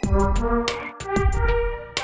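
Instrumental music with heavy bass under sustained pitched tones and repeated percussive hits, with no vocals. The bass drops out briefly about a second in and again near the end.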